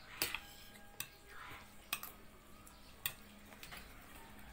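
Metal spoons and forks clinking and scraping against plates during a meal: four sharp clicks, roughly a second apart.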